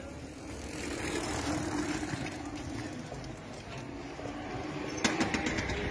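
A moped's small engine running close by, with a cluster of sharp clicks about five seconds in.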